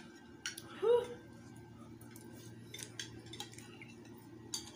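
Metal utensil clinking and scraping in a clay bowl of noodles, several light clicks spread through. About a second in there is a short voiced sound, the loudest thing heard.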